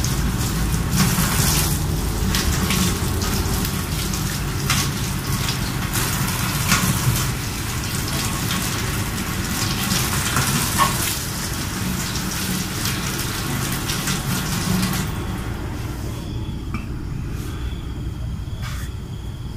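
Tap water running and splashing into a stainless steel sink as star fruit are rinsed under it, with small knocks of fruit and hands against the sink. The water shuts off about fifteen seconds in, leaving a few clicks and a faint steady high tone.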